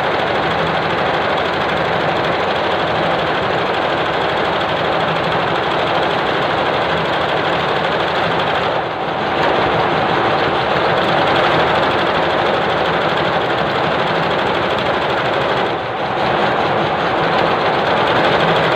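Richpeace flat embroidery machine with coiling/cording heads stitching at speed: a dense, steady, rapid mechanical clatter of the needle and coiling mechanism, dipping briefly twice, about nine and sixteen seconds in.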